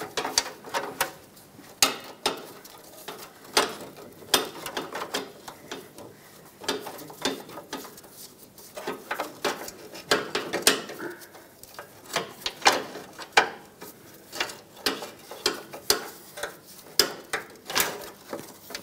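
Rusty steel automatic-transmission cooler lines being twisted and pulled out by hand, clanking, ticking and scraping against the truck's undercarriage in an irregular string of metal knocks and rattles.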